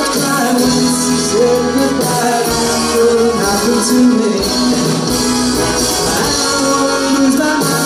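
A live pop band playing a song: strummed acoustic guitar, electric guitar and bass, piano and drums, with a steady beat.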